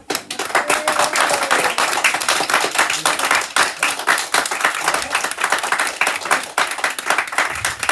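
A small group clapping and applauding.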